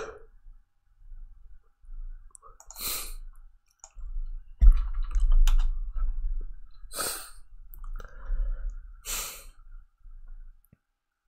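A man breathing out heavily, with sighs close into a desk microphone, three times, with a few faint clicks. A thump about halfway through, the loudest moment, is followed by low rumbling as he shifts about near the mic.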